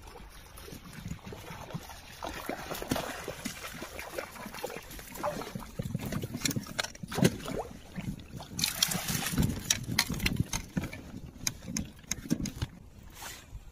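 A hooked fish thrashing and splashing at the water's surface close to an inflatable boat, in irregular bursts, with the heaviest splashing about nine seconds in.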